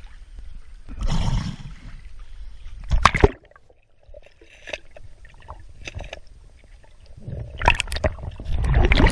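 Lake water splashing and sloshing at a camera held at the surface. The sound cuts to a muffled quiet with faint clicks as the camera goes underwater about three seconds in. Loud splashing and gurgling return near the end.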